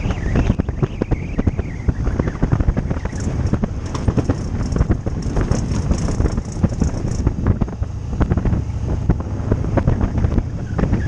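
Wind buffeting a motorcycle rider's microphone at road speed: a heavy, irregular low rumble from riding in the open air.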